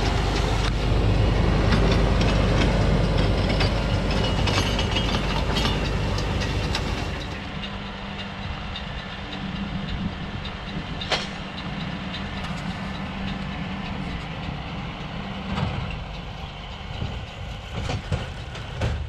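Fendt tractor's engine running as it pulls a McHale round baler through the hay, loud and close for the first seven seconds and then farther off with a steady hum. A few sharp clicks come from the baling machinery, about three times in the second half.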